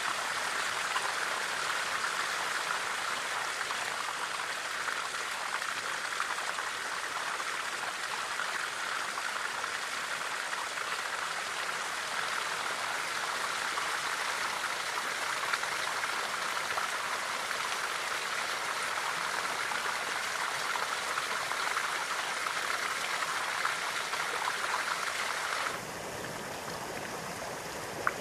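Thin fall of water pouring off a rock ledge and splashing into a shallow, stony stream: a steady rushing splash. About 26 seconds in it cuts sharply to a quieter, duller water sound, with one short sharp sound just before the end.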